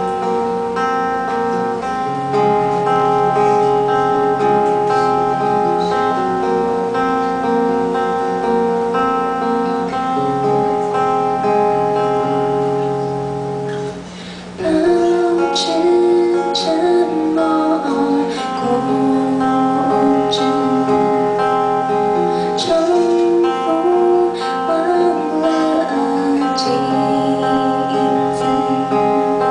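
Instrumental song intro led by acoustic guitar, with no lyrics sung yet. The music drops briefly about halfway through, then returns with a melody line over the chords.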